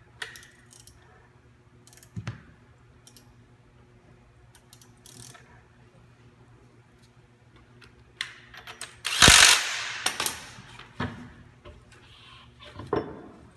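An impact wrench runs in a burst of about a second, hammering an idler bolt tight on a concrete grinder's belt drivetrain, amid scattered clicks and knocks of tools and metal parts being handled.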